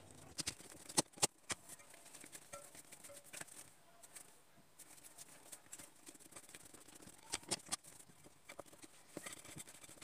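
Hands kneading soft feteer dough in a glass bowl: quiet, irregular squishing and patting, with a few sharp clicks about a second in and a pair more about three-quarters of the way through.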